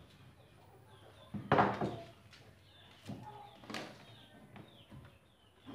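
Clatter and knocks of wood and tools being handled on a workshop table, one loud clatter about a second and a half in and softer knocks after it, with small birds chirping faintly in the background.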